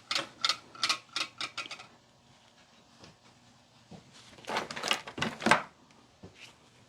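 Rifle parts being handled on a work surface: a quick run of light clicks and taps, then quiet, then a second cluster of rattling and knocks about four seconds in, the loudest near the end.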